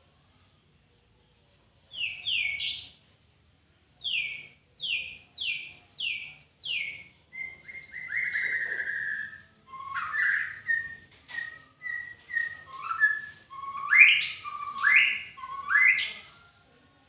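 A murai (Copsychus songbird) singing. It begins about two seconds in with short whistled notes that fall in pitch, repeated in a quick series. It then holds one longer note and moves into more varied phrases of falling and sharply rising notes, loudest near the end.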